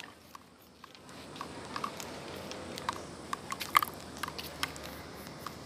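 Footsteps crunching on a gravel path: irregular soft clicks over a steady background hum, starting about a second in.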